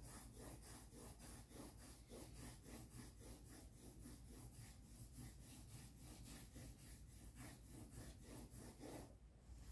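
Coloured pencil shading back and forth on paper: faint, quick, even strokes at about four a second, pausing briefly near the end.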